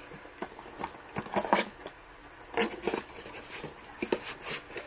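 Cardboard packaging being handled: irregular rustles, scrapes and light knocks as the box and its flaps are moved and tipped, with plastic packaging crinkling. The busiest handling comes about a second and a half in, again near three seconds and toward the end.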